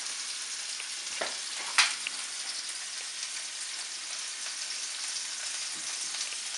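Ground-beef meatballs sizzling steadily in hot olive oil in a frying pan as they brown. Two sharp clicks of the utensil against the pan come about a second in as the meatballs are rolled over, the second one the loudest.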